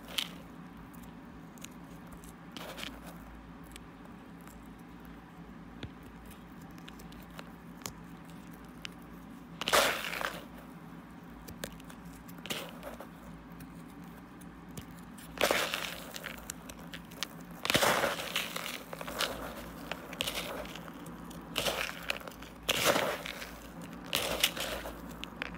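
Fingers and fingernails pressing and raking through a tub of coarse moth crystals, crunching and crackling in short bursts. Only faint scattered clicks for the first nine seconds or so, then a loud crunch about ten seconds in, and more frequent bursts from about fifteen seconds on.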